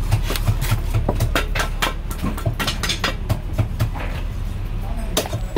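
Heavy Chinese cleaver chopping roast goose on a thick wooden chopping block: a quick, uneven run of sharp knocks, about three a second, over a steady low hum.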